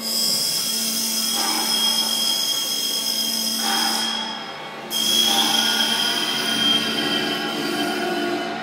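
Abrasive grinding disc of a Clansman Dynamics G30P manipulator grinder grinding a track shoe: a loud, steady, high-pitched squeal over a low hum. About four seconds in the squeal drops away as the disc comes off the work, then bites again with a jump in level about a second later.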